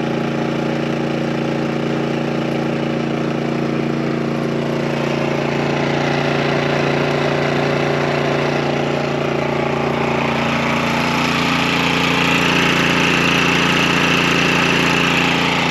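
Portable petrol generator running steadily in eco mode while powering an electric hotplate. A higher hiss swells in over the second half.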